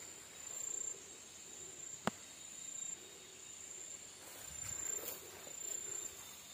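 Insects trilling in a high, steady tone that comes and goes, faint throughout, with one sharp click about two seconds in.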